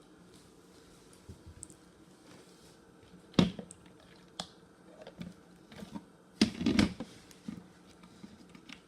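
Hard plastic clicks and knocks from handling the dust bin and filter of a cordless vacuum. There is one loud knock a few seconds in and a short flurry of knocks about two-thirds of the way through.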